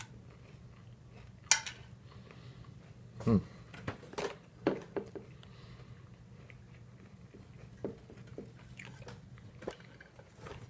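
Cutlery clinking and scraping on a plate in scattered sharp clicks while crisp waffles and boneless barbecue chicken are cut, with some chewing in between.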